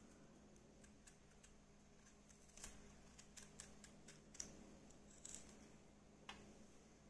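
Faint scrapes and clicks of a kitchen knife cutting the peel off a raw green banana: a handful of short, irregular strokes from about two and a half seconds in.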